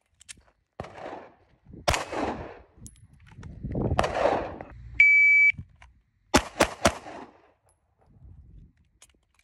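An electronic beep, like a shot timer, about five seconds in, followed about a second later by three quick shots from a compact 9mm carry pistol, a quarter second or so apart. Before the beep, a few scattered knocks and rustles.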